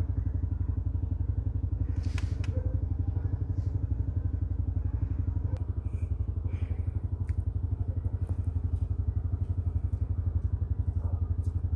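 Steady low hum of an engine or motor running, pulsing rapidly and evenly, with a couple of faint clicks.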